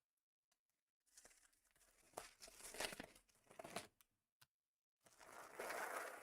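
Faint crinkling and tearing of plastic trading-card packaging, in irregular bursts with a short pause, then a smoother rustle near the end.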